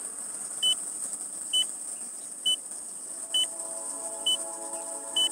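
SJRC F7 drone's low-battery warning: a short, high-pitched beep repeating about once a second, over a steady high hiss. Faint music comes in about three seconds in.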